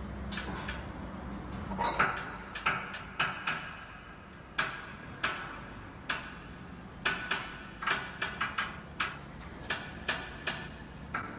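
Ferris wheel: a series of sharp metallic clanks and knocks over a low steady hum, coming more and more often in the second half.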